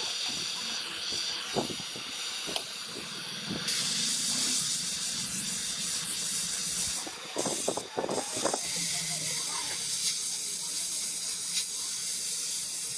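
Steady high-pitched hiss, growing louder about four seconds in, with a few light knocks and clicks over it.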